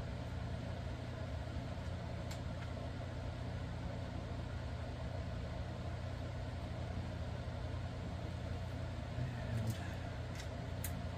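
Steady low background hum, with a few light clicks of small metal fishing-reel parts being handled: one about two seconds in and several near the end.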